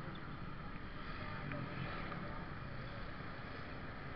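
Steady traffic noise at a wet junction: motorcycle and scooter engines idling and running past, a low rumble under an even hiss, with no sharp events.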